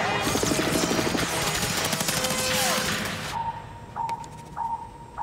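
Cartoon sound effects: a dense, rapid clattering barrage like gunfire, with whooshing glides, for about three seconds. It then cuts off, and an electronic radar beep sounds three times at one steady pitch.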